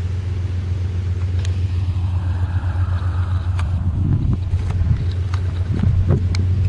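Steady low rumble of an approaching diesel freight train's locomotives, with wind gusting on the microphone from about four seconds in.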